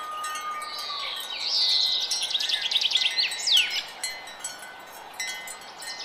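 Wind chime tinkling in quick runs of strikes, with a bird chirping; a fast downward-sweeping call comes about three and a half seconds in.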